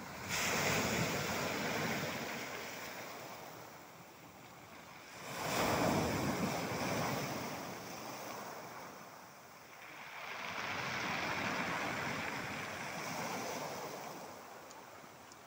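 Waves washing onto a shore: a rush of water that swells and fades away three times.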